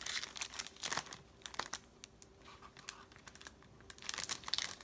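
Crinkling and crackling of a small packet of die cuts being handled, in short clusters near the start and again near the end, with a quieter stretch between.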